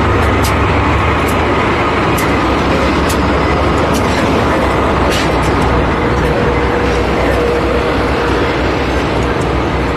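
Diesel locomotive idling beside a standing passenger train: a steady, loud rumble. A faint steady hum comes in about six seconds in, and sharp ticks recur a little under once a second.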